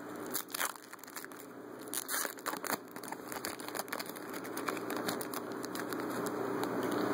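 A trading-card pack's wrapper crinkling and being torn open, with a run of irregular small crackles as it is handled.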